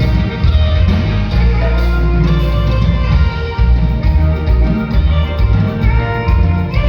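A band playing a chilena, the Mexican Costa Chica dance-music style, with a strong bass line under pitched instrument notes.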